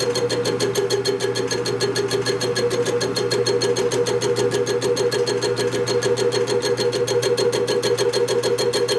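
Shop machine tool running steadily: an even hum with a fast, regular ticking at about nine a second.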